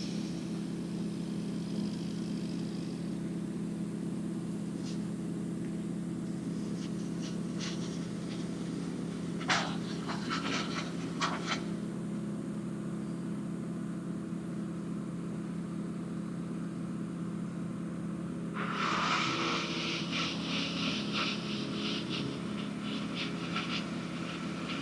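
Steady low hum of an engine running, with a cluster of short clicks about ten seconds in and a noisier, crackling stretch over the last few seconds.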